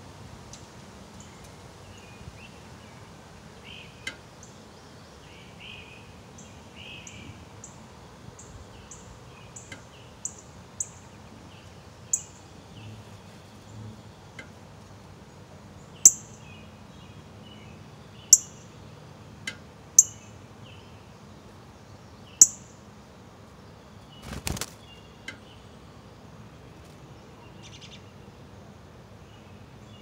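Northern cardinal giving sharp, high single chip notes, one every second or two, faint at first and growing much louder, the loudest coming in the second half as the adult nears the nest. A single knock comes a little later.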